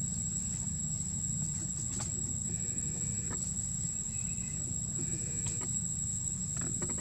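Outdoor ambience: a steady high-pitched insect drone over a low rumble, with a few short faint chirps in the middle and a quick rattling run of clicks near the end.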